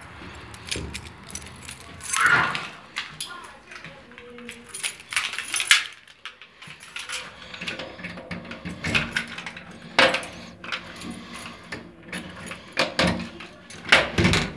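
A bunch of keys jangling and clicking against a door's knob lock and deadbolt as the door is unlocked, in a run of short metallic clicks and rattles.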